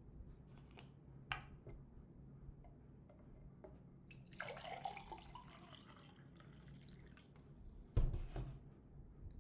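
Coconut water poured from a plastic gallon jug into a drinking glass, a liquid pour of a second or two about halfway through. A few small clicks come before it, and a thump near the end.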